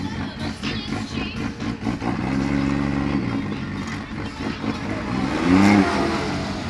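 Nissan R33 Skyline's straight-six heard from inside the cabin, rolling at low revs, with a quick rev blip that rises and falls in pitch about five and a half seconds in.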